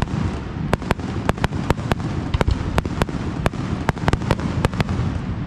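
Aerial fireworks shells bursting: a rapid, irregular series of sharp bangs, about three or four a second, over a steady low rumble.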